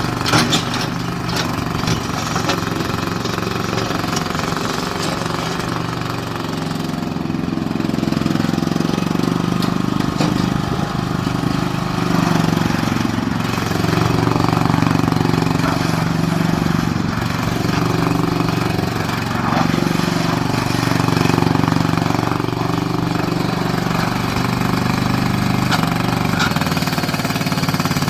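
Bobcat 310 skid-steer loader's engine running, its speed and loudness shifting up and down throughout, with a few sharp knocks about half a second in.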